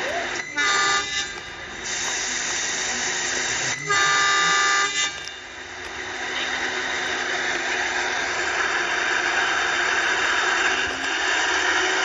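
Horn of a ZDM diesel locomotive on a narrow-gauge train, sounding two blasts about three seconds apart, each just over a second long. After them comes the steady rumble of the coaches rolling past on the track.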